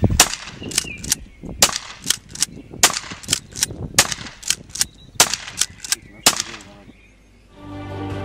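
Uzkon AS19 12-gauge pump-action shotgun: a heavy thump, then an uneven run of about twenty sharp metallic clacks over some six seconds, many of them in close pairs.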